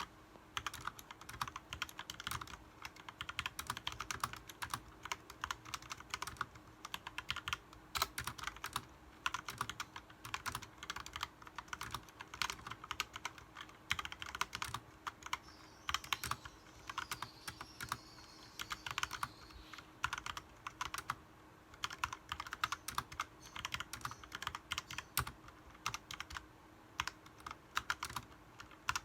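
Typing on a mechanical keyboard: a fast, irregular run of key clicks with a few brief pauses.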